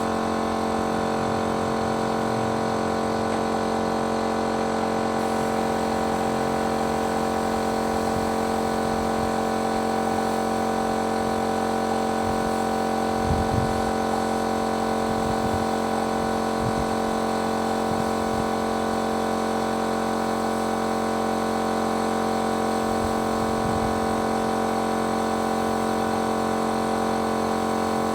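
Paint-spraying machine's motor running steadily at constant speed, an even hum, with a couple of low knocks about halfway through.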